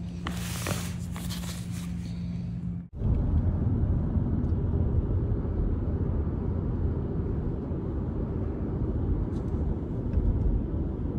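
Rustling of fabric being handled over a steady low hum, then an abrupt cut to the steady engine and road rumble of a car driving, heard inside the cabin.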